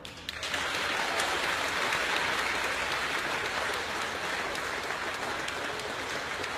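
Large audience applauding, breaking out suddenly just after the start and holding steady.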